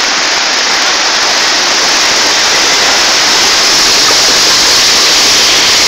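Storm-swollen river in flood: muddy floodwater rushing and churning in a loud, steady rush.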